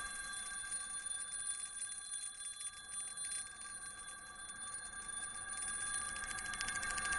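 A steady, shimmering high ringing made of several held pitches with a fast flutter, like an electronic bell tone, growing louder near the end.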